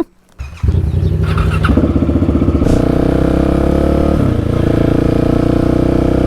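Husqvarna 701's single-cylinder engine starting about half a second in, then running steadily, with a brief dip in its note around the middle.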